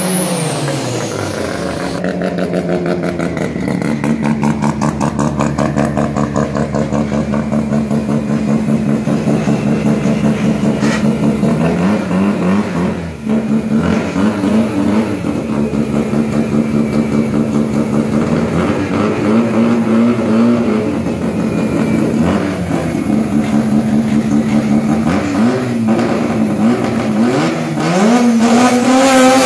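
Mazda RX-7 (FC) rotary engine, its revs falling away after a burnout, then idling with an uneven, pulsing beat. There are a few small blips of the throttle along the way, and the revs climb again near the end.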